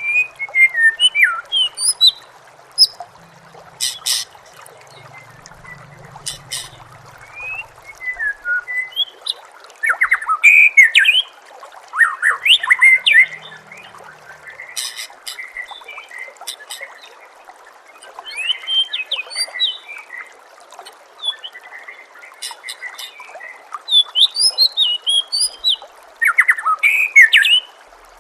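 White-rumped shama (murai batu) singing in repeated bursts of quick, sliding whistles and sharp clicking notes, loudest about ten seconds in and again near the end, over a steady trickle of running water.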